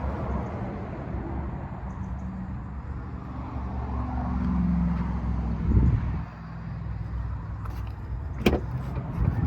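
Steady low rumble of road traffic, with a thump about six seconds in and a sharp click near the end.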